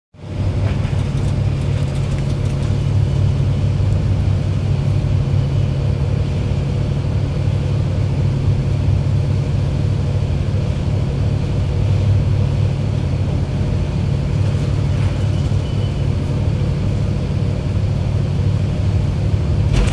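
Ferry's engines droning steadily, under a strong rush of wind buffeting the microphone and water rushing along the hull.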